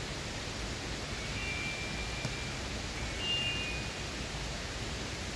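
Steady even rush of flowing stream water. Two faint high thin tones sound briefly, about a second in and again about three seconds in.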